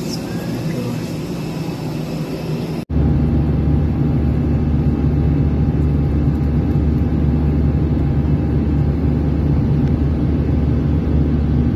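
Airliner cabin noise in flight: a steady low rumble of the jet engines and airflow, which starts abruptly about three seconds in. Before it there is a quieter steady hum of an aircraft parked at the gate.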